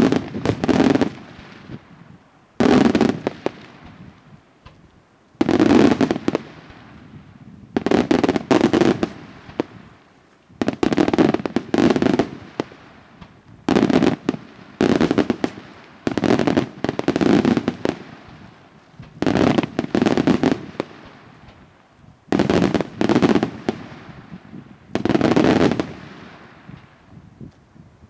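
Daytime aerial fireworks: shells bursting overhead in clusters of loud, sharp bangs every couple of seconds, each cluster fading out in an echoing tail.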